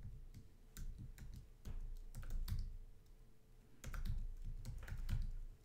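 Typing on a computer keyboard: bursts of quick keystrokes, with a brief pause a little past halfway.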